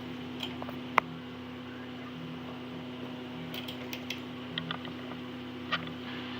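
Steady hum of microsoldering bench equipment with a faint pulse about once a second. There is one sharp click about a second in and a scatter of small clicks and taps from metal hand tools later on.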